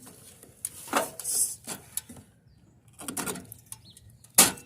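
Cutters snipping through electrical cords on scrap, with a few sharp clicks and crunches and some plastic rustling; the loudest snap comes near the end.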